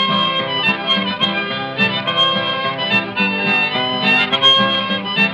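Harmonica playing a melody over a strummed acoustic guitar, an instrumental lead-in to an old-time country song, from an early recording with no high end.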